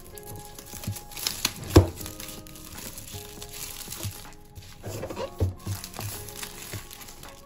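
Clear plastic shrink wrap crinkling and crackling as it is peeled off a cardboard box, with a sharp crackle about two seconds in. Background music plays underneath.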